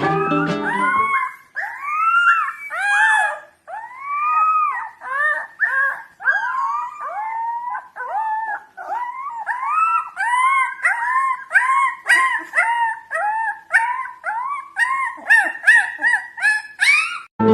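A pack of canines howling and yipping together: many overlapping calls that rise and fall in pitch, a few long howls at first, then a denser run of short yip-howls toward the end.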